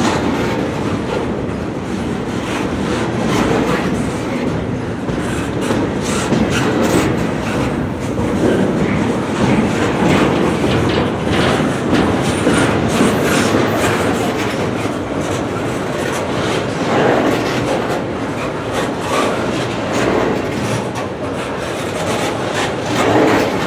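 Freight train cars rolling past at speed: a steady rumble of steel wheels on rail, with irregular clicking as the wheels pass over the rail joints.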